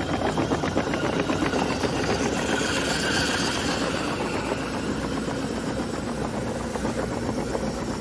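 JCB JS220LC tracked excavator travelling: its engine running steadily under a rapid clatter from the steel tracks. The sound grows a little fainter toward the end as the machine moves off.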